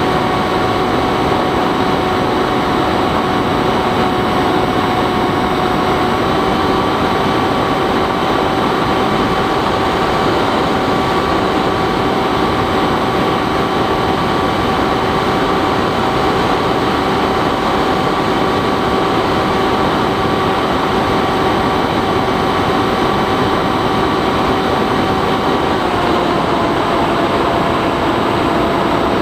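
Bixler 3's electric motor and propeller whining steadily in flight over a rush of wind. The pitch steps up slightly about six seconds in and drops back near the end as the throttle changes.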